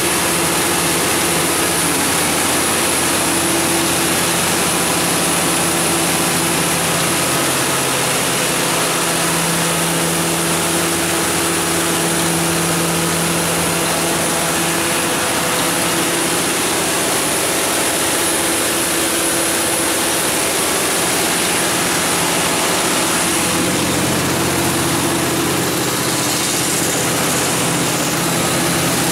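Cummins 350 kW generator set's GTA19-G2 natural gas engine running steadily, a loud even hum that holds one pitch with little change, heard with the enclosure doors open.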